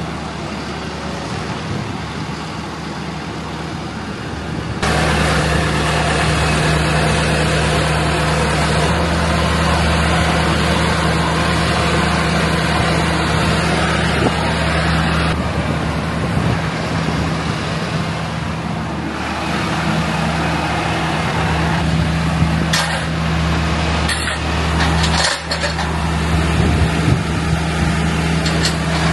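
Engine of a boatyard lifting crane running as the machine moves, rising in revs and loudness about five seconds in and shifting a few times after that. A few short knocks and hisses come near the end.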